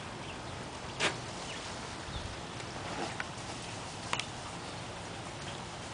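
Quiet outdoor background hiss with a few brief sharp sounds: one about a second in, and fainter short ticks around three and four seconds in.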